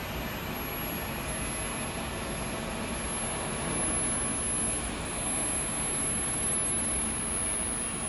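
Steady machinery noise from an electric aluminum melting furnace running under test, with no clear tone, as its power is turned up on the control knob.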